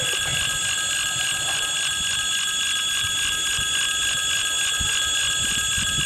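Electric warning bell ringing continuously with a rapid, even stroke, of the kind used at railway crossings and stations. A few faint low thuds sound underneath.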